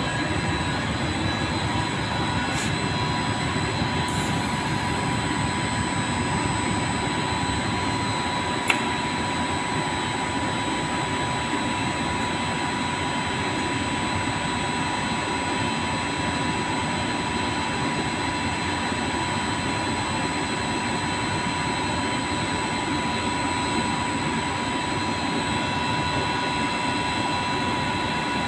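TIG welding: a steady hiss with a faint high whine running under it, and a single click about nine seconds in.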